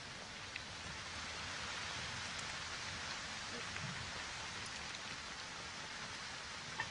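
Steady hiss of outdoor background noise, with a few faint ticks and soft low thuds scattered through it.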